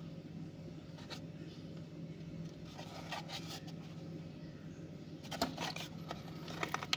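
Fingers handling a clear plastic blister pack on a cardboard backing card: faint rubbing and scratching, with a few light crackles of the plastic, growing into a denser run of crackles and clicks near the end.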